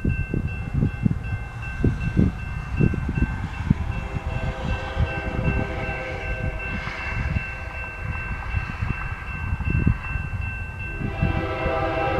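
Railroad crossing warning bell ringing steadily over irregular low rumbles. From about four seconds in, the horn of the approaching freight train's GE lead locomotive sounds faintly in the distance, growing much louder near the end as the train nears the crossing.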